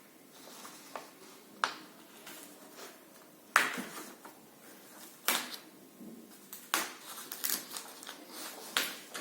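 Handling noises: about half a dozen sharp clicks and knocks at irregular intervals over faint room tone, the loudest about three and a half seconds in.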